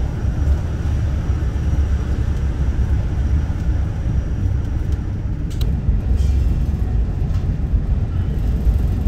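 Steady low rumble of a ferry's engines heard inside the passenger cabin, with a brief click a little over halfway through.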